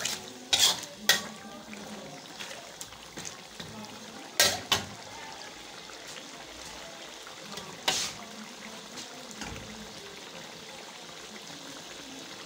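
Chicken sizzling in oil in an iron karahi, a steady frying hiss, with the spatula scraping and knocking against the pan a few sharp times, twice in the first second or so, twice about four and a half seconds in and once about eight seconds in.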